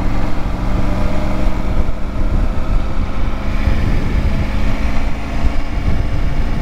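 Motorcycle engine running steadily while riding, with wind rumbling on the bike-mounted microphone.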